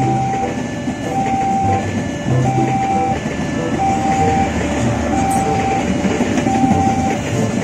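Passenger train coaches rolling past, a continuous rumble of wheels on the rails. Over it a level-crossing warning bell repeats a short ding about every second and a quarter.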